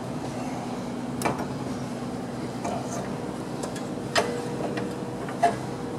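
A few light clicks and knocks as hands handle the slipped-off belt and pulley, three of them spaced a second or more apart, over a steady background hum.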